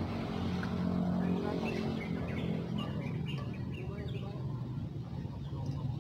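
Small birds chirping in quick, short high calls, thickest from about one and a half to four seconds in, over a steady low motor hum that eases after the first second or so.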